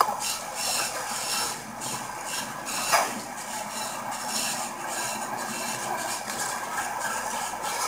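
Soft rustling and rubbing of fabric, clothing and pillows shifting against a body-worn microphone, over steady hiss, with a slightly louder brush about three seconds in.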